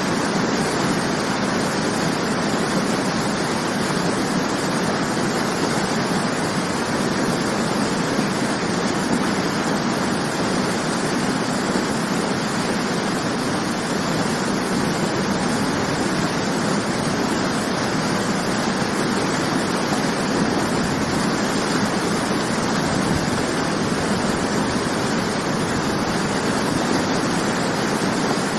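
Waterfall rushing steadily: a constant, even roar of falling water with no breaks or changes.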